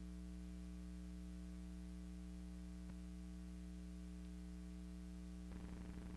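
Steady electrical mains hum with a faint hiss, the only sound on a silent film's soundtrack. About five and a half seconds in the hum turns slightly louder and fluttering, with a faint tick a little before.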